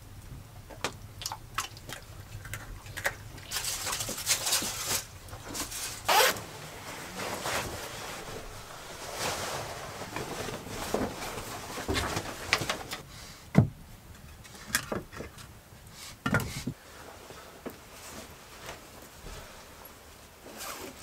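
Someone moving about a small wooden room: clothing rustling, things being handled and scraped, and scattered knocks, with one sharp knock a little past halfway.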